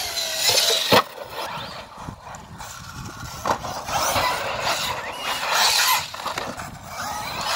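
Arrma Kraton RC car running on concrete: a faint motor whine over rough rolling noise, with a sharp knock about a second in.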